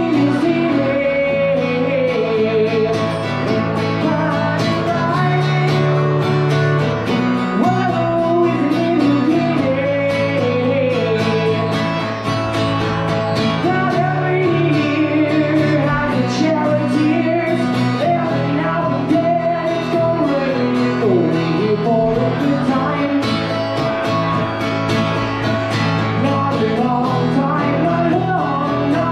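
A song sung with guitar accompaniment, the voice carrying a continuous melody over steady strummed chords.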